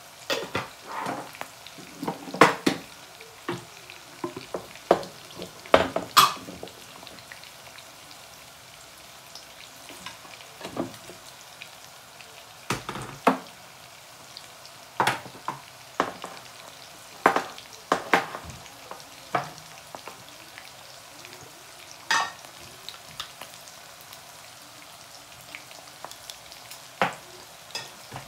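Prawns, onions and tomatoes sizzling in hot oil in a nonstick wok, a steady frying hiss. Over it come irregular sharp knocks and scrapes of a wooden spoon against the pan, about fifteen in all.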